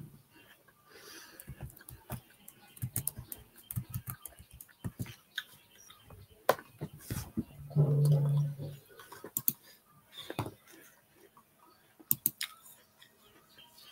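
A person eating crunchy apple and dry nuts close to the microphone: irregular crunches and clicks, with a short low closed-mouth hum about eight seconds in.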